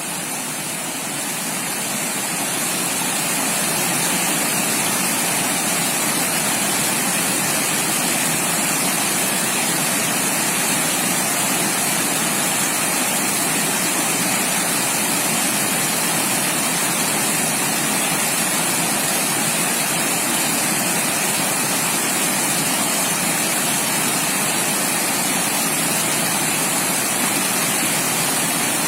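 Steady rushing water, an even hiss strong in the high pitches, fading up over the first few seconds and then holding level.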